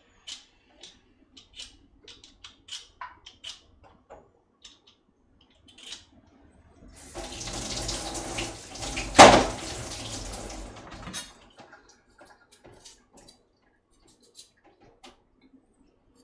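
Kitchen faucet running into the sink for about four seconds, with a single sharp knock partway through. Scattered light clicks and taps come before and after.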